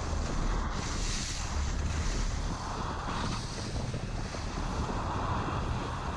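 Wind rushing over the microphone while riding down a ski slope, with a hiss of sliding on snow that swells and fades every second or two.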